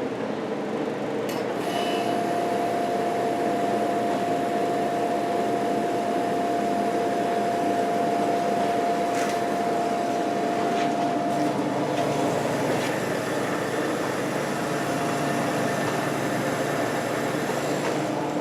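1973 Sears Coldspot dehumidifier running just after start-up: its Tecumseh refrigeration compressor and fan hum steadily. A steady tone in the hum drops out about two thirds of the way through and returns near the end.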